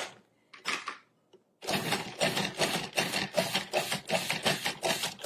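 Cuisinart 14-cup food processor pulsing its chopping blade through tomatoes and cilantro. It starts about a second and a half in as a fast rhythmic chopping and whirring, with several strokes a second.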